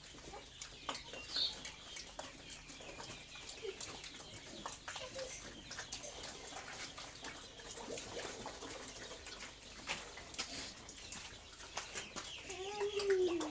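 Pigs eating, chewing and smacking in a steady run of small wet clicks, with a few short chicken clucks mixed in.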